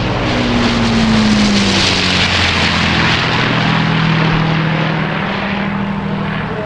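The Avro Lancaster bomber's four Rolls-Royce Merlin engines drone loudly as it flies low overhead. The engine pitch drops in the first couple of seconds as it passes, then the sound eases off slightly as it moves away.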